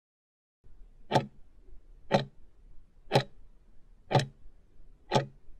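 Countdown-timer tick sound effect: five sharp clock ticks, one a second, marking the last seconds of a timer running down.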